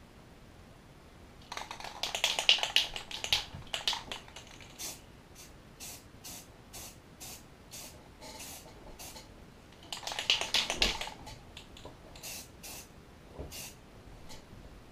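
Rust-Oleum camouflage aerosol spray paint can sprayed in a string of short bursts, with two louder, clattering spells about 2 s and 10 s in.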